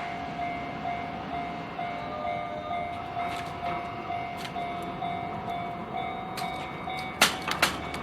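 Japanese level crossing warning bell ringing in its repeating kan-kan, about two strikes a second, with the crossing still closed after a train has cleared. Near the end, a few sharp loud clacks.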